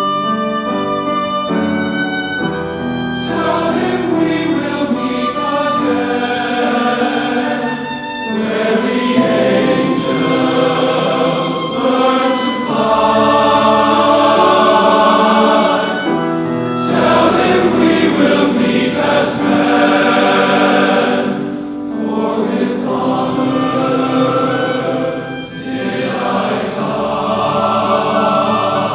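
Men's chorus singing a Broadway song with grand piano accompaniment, the full choir coming in more strongly about three seconds in.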